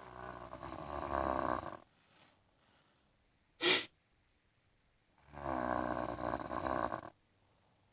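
A person snoring: two long snores, each about two seconds, with a brief sharp noise between them.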